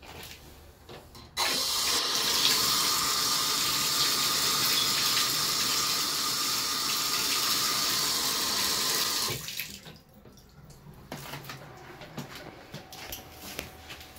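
Bathtub faucet running: water from the spout pours steadily into the tub, starting suddenly about a second and a half in and shutting off about eight seconds later. Faint scattered clicks before and after.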